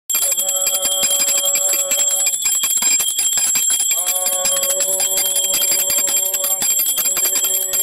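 Devotional kirtan music starting abruptly. Metal hand cymbals ring on without a break over rapid percussion strikes, with held notes in the mid range that come and go.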